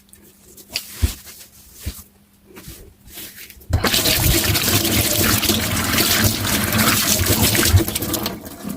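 A few light knocks, then a little under four seconds in, water gushes out of a kitchen tap into the sink and runs steadily, easing off just before the end.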